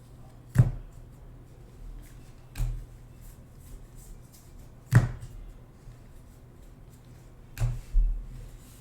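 Four short, sharp knocks spread over several seconds, the last one doubled, from trading cards and packs being handled and set down on a table. A faint low hum sits underneath.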